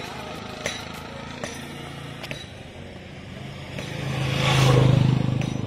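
A motor vehicle passes close by, its engine and tyre noise swelling to a peak about four and a half seconds in and then fading. Under it runs a steady low engine hum, with a few light clicks in the first couple of seconds.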